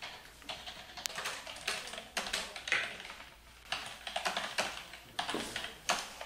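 Typing on computer keyboards: irregular runs of key clicks with short pauses between them.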